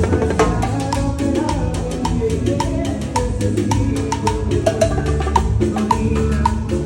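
Live banda playing an instrumental passage with no vocals: wind instruments over a low bass line and a drum beat, with a sharp tick about twice a second.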